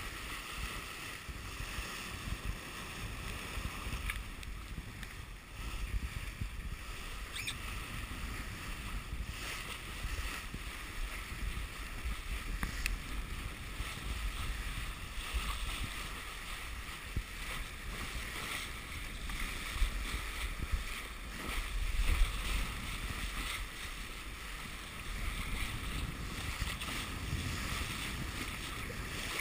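Sea water rushing and splashing along a sailboat's bow as it sails through choppy water, with wind buffeting the microphone. A few louder surges come about two-thirds of the way through.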